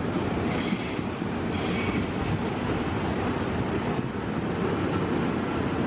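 CC201 diesel-electric locomotive moving past on the tracks, its engine giving a steady low rumble.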